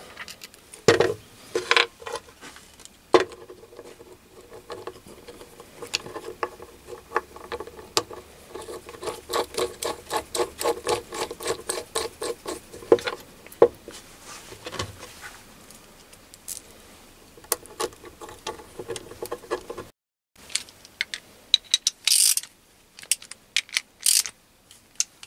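Small metal parts of a lathe carriage stop being handled and screwed together by hand: quick runs of light clicks and ticks, densest in the middle. Near the end, a few sharper clicks as a small socket ratchet tightens its bolts.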